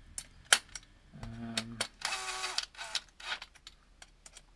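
Cordless drill running chainring bolts into a bicycle crankset in short bursts of whirring, with sharp clicks of the bit and bolts in between.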